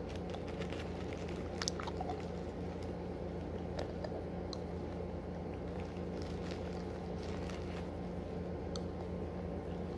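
A child eating hard sour candies: faint scattered mouth clicks and chewing sounds over a steady low hum.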